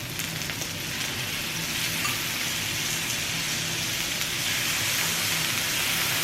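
Pork belly (samgyeopsal) sizzling on a Korean barbecue grill: a steady frying hiss that grows slightly louder.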